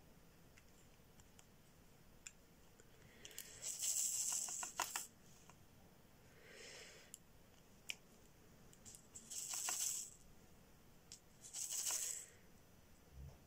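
Small diamond-painting drills (rhinestones) rattling in a handheld tray as it is shaken, in three bursts of about a second each and a fainter one between the first two.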